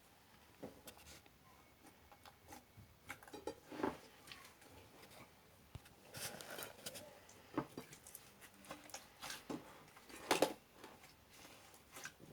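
Slime being mixed and squished, making irregular sticky clicks and small wet pops, a few louder ones about 4, 7.5 and 10.5 seconds in.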